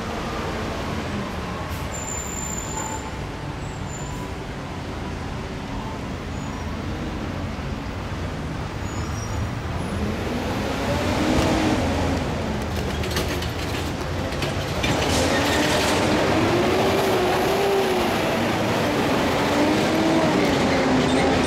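Road traffic at a railroad crossing: car and pickup engines pulling away, their pitch rising and falling as they speed up, over a steady low rumble. The engines come in about halfway through and grow louder near the end.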